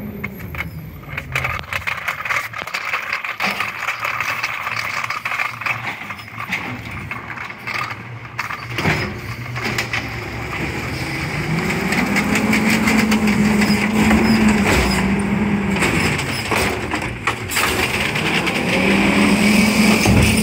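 Automated side-loading garbage truck running, its engine revving up, holding and dropping back twice in the second half as it drives the hydraulic arm that lifts and empties a cart. Scattered clicks and rattles in the first half.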